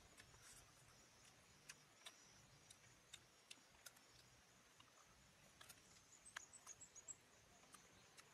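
Near silence, with faint scattered ticks and clicks and a brief run of quick high chirps about six seconds in.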